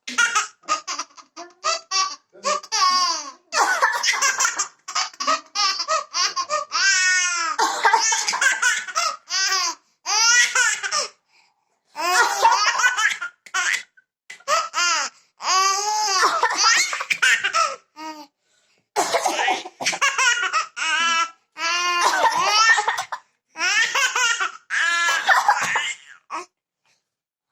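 A baby laughing hard in repeated high-pitched bursts, set off by a woman's coughs between them; one long drawn-out laugh about seven seconds in.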